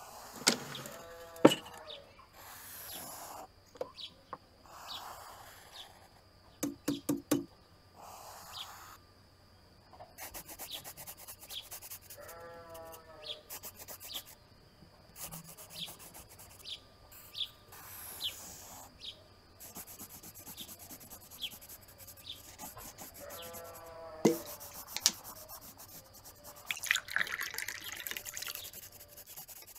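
Kitchen sounds in sequence: sharp clicks and knocks of a drawer and things handled at the counter, then a long stretch of pencil scratching on paper, and near the end water poured from a glass bottle into a drinking glass. Three short wavering calls sound at intervals.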